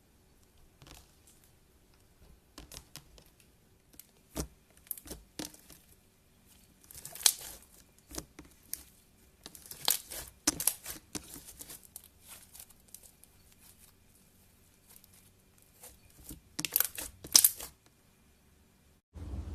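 Slime being handled, stretched and pulled apart, giving irregular bursts of sticky crackling and popping, in three louder clusters.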